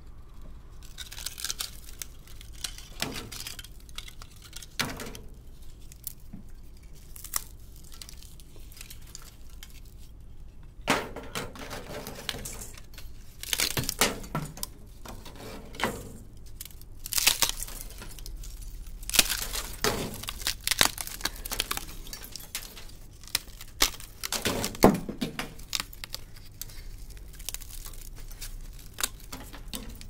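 Brittle oxide scale on a furnace-burnt stainless steel pan crackling and breaking off as the pan is handled and scraped. Flakes clink and scrape in irregular bursts, sparse at first and busier in the second half, with a few sharper knocks.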